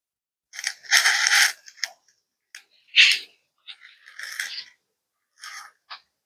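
A few short rustling, scraping noises, the loudest about a second in and another about three seconds in.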